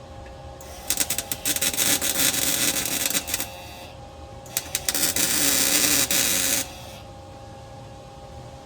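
Electric welder's arc crackling and sputtering in two runs, one of about three seconds and one of about two, as an exhaust pipe joint is welded, over a steady hum.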